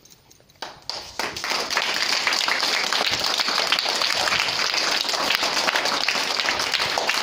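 A class of young schoolchildren applauding, the clapping starting about a second in and going on steadily.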